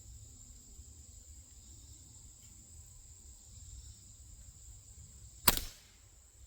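Benjamin Prowler .22 calibre nitro-piston break-barrel air rifle firing a single shot about five and a half seconds in: one sharp crack with a brief tail. Insects trill steadily in the background.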